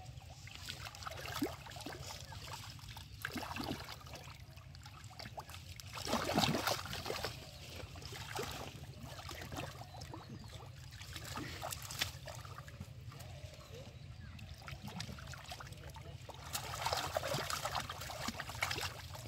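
Hands groping and splashing in shallow muddy water, with irregular trickling and sloshing. The splashing is louder about six seconds in and again near the end.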